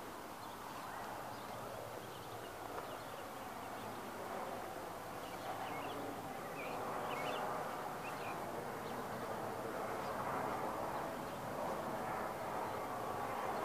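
Steady outdoor background noise, with a few short bird chirps about halfway through.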